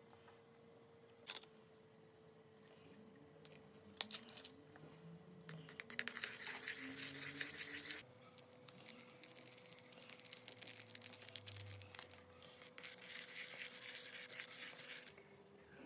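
Slime being handled and squeezed: a crackly, sticky rustling that comes in two long stretches, with scattered clicks, over a faint steady hum.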